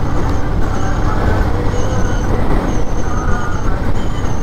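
Motorcycle engine running steadily at cruising speed, with wind and road noise rushing over a bike-mounted camera microphone.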